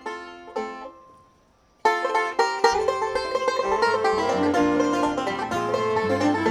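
Bluegrass band starting a song: a few lone plucked notes, a short pause, then the whole band comes in together about two seconds in, banjo to the fore, with low bass notes joining a moment later.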